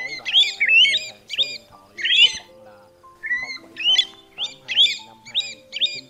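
Pacific golden plover calls: clear whistled notes that rise then drop, repeated in quick clusters, about a dozen, played back as a trapping lure. Soft background music with held notes runs underneath.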